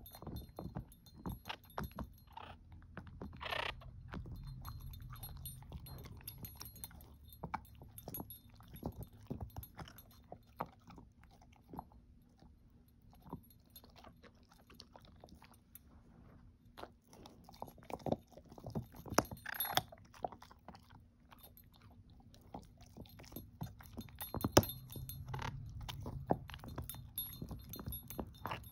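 A dog gnawing and chewing a hard "everlasting" treat held in a slotted chew ball: irregular crunches and clicks of teeth on the treat and toy, with the metal tags on her collar jingling now and then. One sharp knock stands out about three quarters of the way through.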